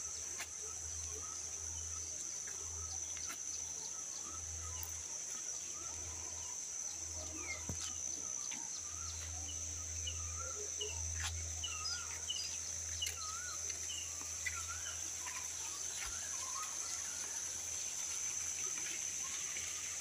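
Rural ambience: a steady high-pitched insect drone with many short bird chirps and calls over it, and a low rumble that comes and goes.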